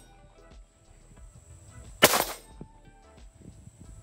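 A single rifle shot from a Ruger AR-556 (a 5.56 mm AR-15) about halfway through: one sharp crack with a short echo tail.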